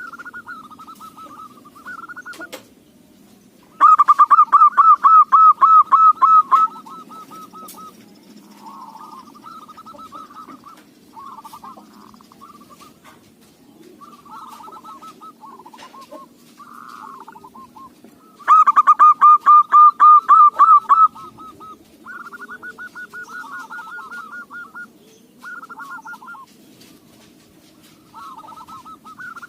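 Zebra doves (local perkutut) calling: repeated phrases of fast, staccato cooing notes. Two loud bouts come about 4 seconds in and about 18 seconds in, with quieter calls between.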